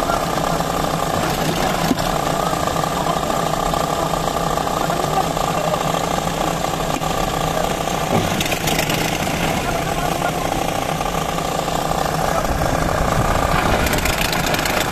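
An engine running steadily with a constant rattling drone, with a sharp click about two seconds in.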